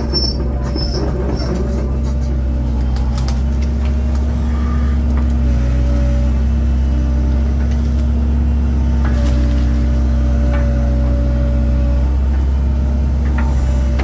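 Diesel engine of a 1997 Link-Belt 2700 excavator running steadily under work, its note shifting slightly a few times as the hydraulics are loaded, with a few faint knocks.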